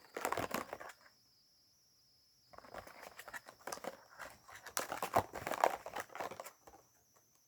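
Plastic packaging crinkling and rustling as it is handled, in two spells: a short one at the start and a longer, denser one from about two and a half seconds in.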